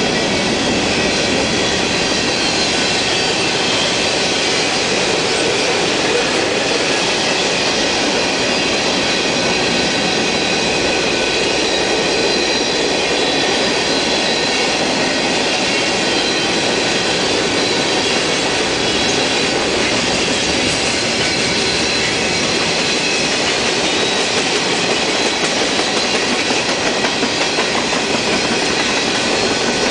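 Mixed freight train cars rolling past on the track: a steady, unbroken running and rattling of steel wheels on rail, with faint high-pitched wheel squeal.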